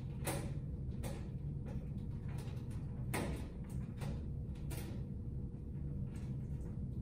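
Scattered soft clicks and rustles of electrical wires and connectors being handled inside a metal light fixture, over a steady low hum.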